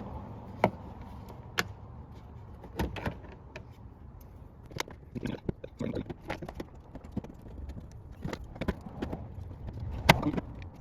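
Plastic push clips and a plastic trim shield being worked loose by hand: a scattered series of sharp clicks and knocks, the loudest about ten seconds in.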